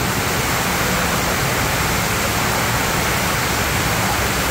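Steady rush of water from a flow-ride surf-simulator wave machine: a thin sheet of pumped water pouring fast up the ride surface.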